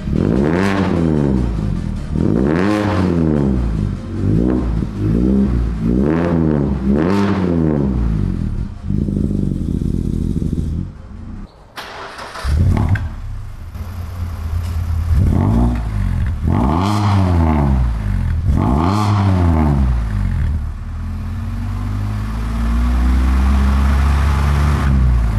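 Mazda ND MX-5 Miata's four-cylinder engine on a cold start through a Tomei Expreme Ti titanium muffler, idling with repeated short throttle blips that rise and fall. About halfway through, the engine runs again with the muffler's silencer insert fitted, is blipped a few more times, then settles to a steady idle.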